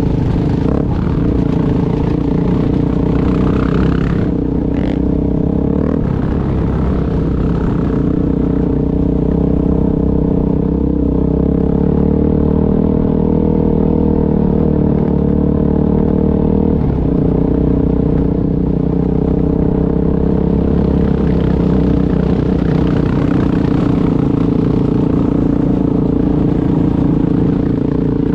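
ATV engine running steadily at a fairly constant speed while riding a dirt trail, with a couple of short knocks about four to five seconds in.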